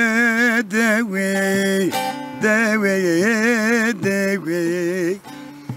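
A man's voice singing a folk lament (ağıt) in long, wavering held notes, broken into phrases by short breaths. A bağlama (long-necked saz) is plucked and strummed along with it.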